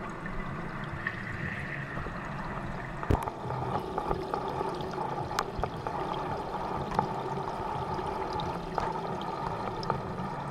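Aquarium water circulating, heard through a camera submerged in the tank: a steady muffled rush with a low hum and a steady higher tone joining about three seconds in, scattered small clicks, and one louder knock about three seconds in.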